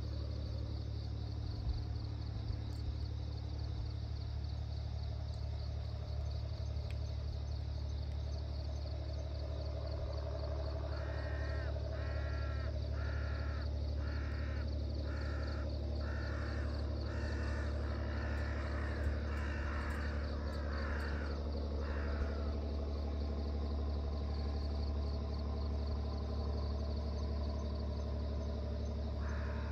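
A crow cawing: a run of about fifteen harsh calls less than a second apart in the middle, and another near the end, over a steady low hum and a faint, even high chirring.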